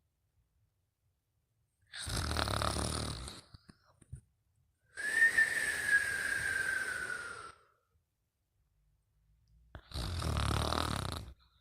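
Snoring in sleep: three breaths about four seconds apart. The first and last have a low rumble; the longer middle breath carries a whistle that slides slowly down in pitch.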